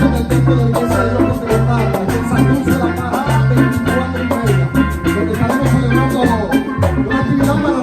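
Upbeat Latin-style band music, with a bass line moving note to note under steady drum and percussion strokes and a pitched melody above.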